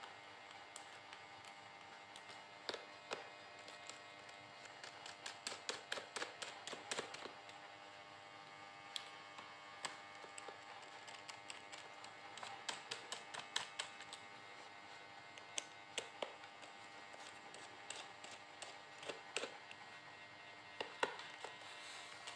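Small irregular clicks and taps from handling a laptop, coming in loose clusters, over a faint steady hum.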